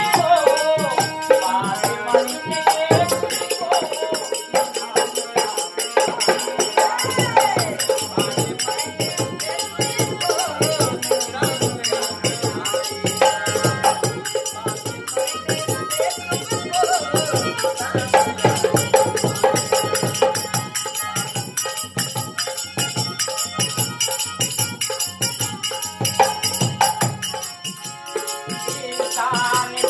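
Harmonium and dholak playing a nirgun folk song, with the harmonium holding sustained reedy chords over a steady drum rhythm and a man singing the melody in places.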